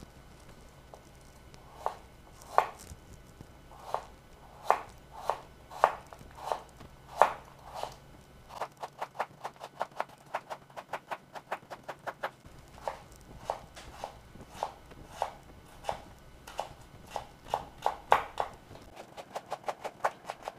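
Chef's knife cutting carrots on a bamboo cutting board: sharp knocks of the blade through the carrot onto the board. At first the strokes come singly, about a second apart, as the carrot is sliced into rounds. From about nine seconds in they come in quicker runs of several a second as the slices are cut into julienne strips.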